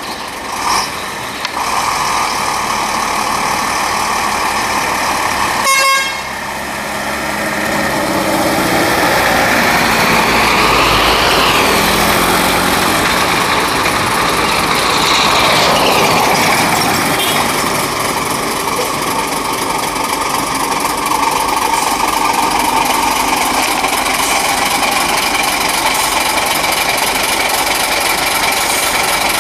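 Heavy log-laden diesel trucks driving past on a dirt road, their engines running under load, with a short horn toot about six seconds in. A vehicle passes close in the middle, its pitch rising and then falling.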